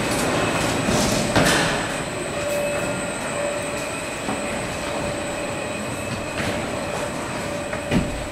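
Cabin car of the Bund sightseeing tunnel running on its track: a steady rumble with a faint steady hum, with a sharp knock about a second and a half in and another near the end.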